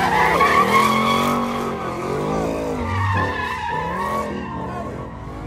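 A car doing donuts: the engine revs up and down in repeated surges while the spinning tyres squeal, fading somewhat toward the end.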